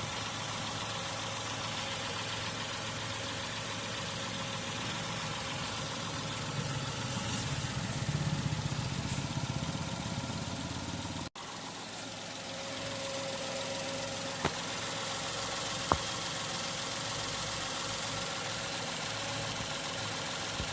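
Tata Tiago's three-cylinder engine running steadily at idle, swelling a little for a few seconds before a brief dropout midway, with two short clicks later on.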